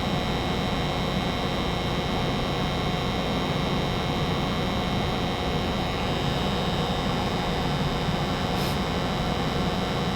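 Steady hum of a gas furnace running with its circulating blower on, a few constant whining tones over an even rush. One faint tick near the end.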